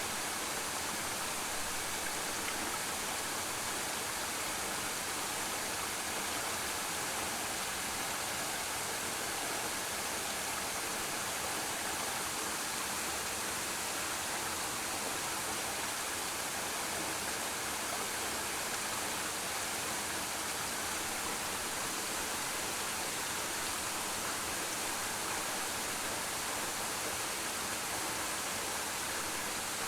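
Waterfall: a steady, even rush of falling water pouring onto rock and pool.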